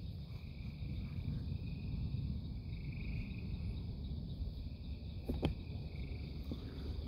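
Night insects chirping steadily in a high, slightly pulsing drone over a low, steady rumble. A single sharp click comes about five seconds in.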